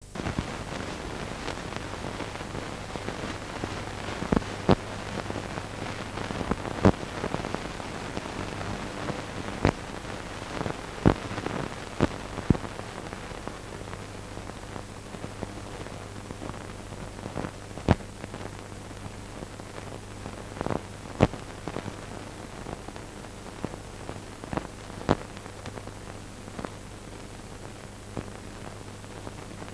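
Steady hiss and a low hum from an old, worn film soundtrack, with irregular crackles and pops scattered through it, more of them in the first half. No speech or music.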